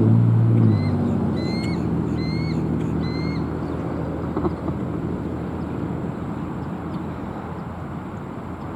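A steady low engine hum, loudest in the first second and then easing off. Over it, about a second in, comes a run of four short, high chirps that rise and then fall: bald eagle calls.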